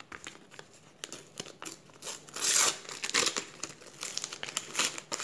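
Paper sticker packet and stickers being handled, crinkling in a string of rustles and crackles, loudest about two and a half seconds in.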